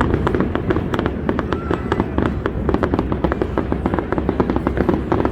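Aerial fireworks display: a dense stream of rapid sharp crackles and pops over a steady low rumble.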